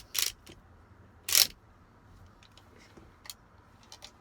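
Colt .45 replica BB revolver fired twice, a little over a second apart, each shot a short sharp pop with a hiss of gas. A couple of faint clicks follow near the end.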